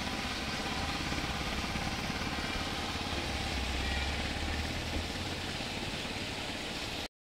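Steady outdoor background noise: a low rumble with a hiss over it, a little stronger about halfway through.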